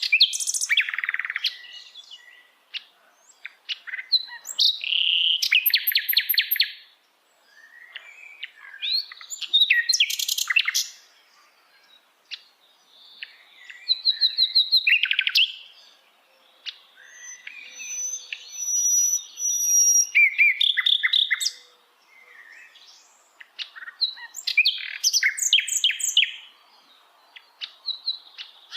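Sikatan londo flycatcher singing: a series of varied, rapid, high twittering phrases, each a second or two long, with short pauses between them.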